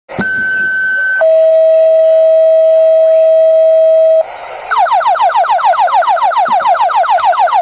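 Fire dispatch radio paging tones: a two-tone page, a higher steady tone for about a second, then a lower one held for about three seconds. After a short pause comes a fast alert warble of about seven falling sweeps a second.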